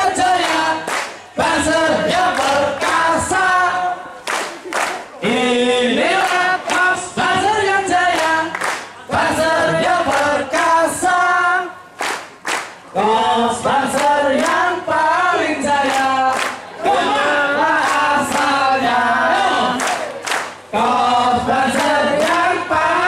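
A large group of men singing a marching song together, with hand claps among the singing.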